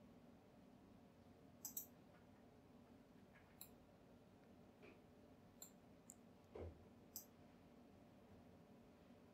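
Computer mouse buttons clicking, about half a dozen short sharp clicks, some in quick pairs, over faint room hiss, with one soft low knock about six and a half seconds in.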